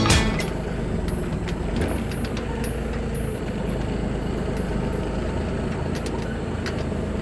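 Motor vehicle engine running steadily on the move, a low even rumble with a few faint ticks and rattles.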